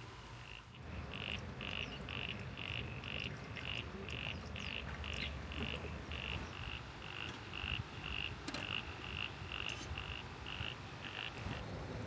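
An animal calling in a steady rhythm: short, high-pitched pulses at about three a second, starting about a second in and stopping just before the end, over faint outdoor background.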